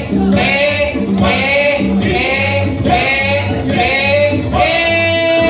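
Upbeat dance music played loud over a PA, with singing in short repeated phrases over a steady bass line and a long held note near the end.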